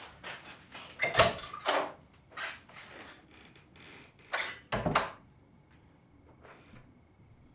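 A door being handled in a small room: a loud knock about a second in and another around five seconds, with softer clatters between. Then it goes quiet apart from a faint steady high-pitched hum.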